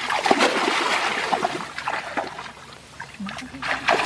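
Shallow water splashing and sloshing as people wade and grope for fish by hand. It is busy in the first two seconds, eases off, then picks up again near the end.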